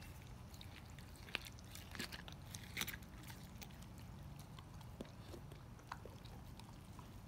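A dog chewing a raw whole lake herring held to its mouth, with scattered wet crunches and sharp clicks of its teeth in the fish, the loudest between about one and three seconds in and a few more near six seconds.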